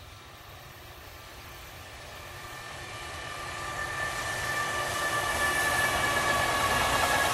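JR Freight electric locomotive approaching and passing at the head of a container train, growing steadily louder, with a high whine of several steady tones over the noise of the train.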